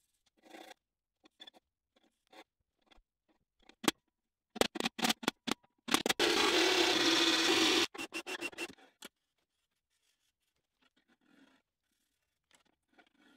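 Marking out a steel plate: a felt-tip marker scratching on the metal, and a hammer striking a centre punch several times in quick succession. In the middle comes a loud scraping noise lasting about two seconds, the loudest sound here.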